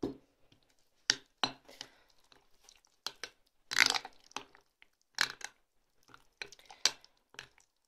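Metal spoon stirring a thick casserole mixture in a glass bowl, with irregular clinks and scrapes of the spoon against the glass and one longer scrape about four seconds in.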